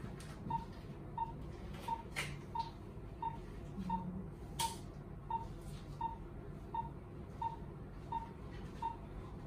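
Patient monitor's pulse-oximeter beep: a short beep of one steady pitch repeating evenly about every 0.7 seconds, each beep marking a heartbeat, a pulse of roughly 85 to 90 a minute. Two sharp clicks stand out, about two seconds and four and a half seconds in.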